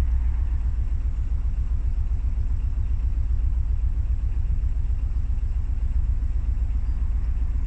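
A narrowboat's diesel engine running steadily, a low, fast-pulsing rumble carried up through the boat's steel roof.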